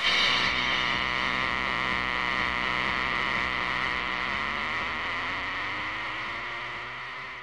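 A sustained electronic drone with a hissing, buzzing upper layer over a low hum. It starts suddenly, holds steady, then slowly fades out near the end.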